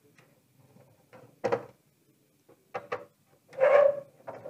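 A few separate knocks and short scrapes of hands and a small tool working on the LED backlight strips in the plastic back housing of a Polytron PLD 24D123 LED TV. The longest and loudest scrape comes a little before the end.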